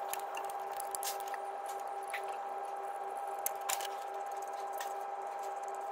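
Light, irregular clicks and taps of metal parts being handled as the loosened timing belt tensioner and its bolts are worked off the engine by hand, over a steady background hum.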